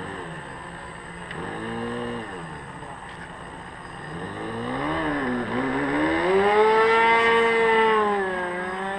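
Radio-controlled model airplane engine running, its pitch rising and falling several times with the throttle, then holding a long high note for a couple of seconds before falling away near the end.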